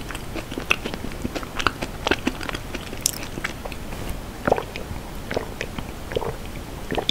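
Close-miked mouth sounds of someone eating dessert: moist chewing with small clicks and smacks. About halfway through there are sips and gulps of americano from a glass mug.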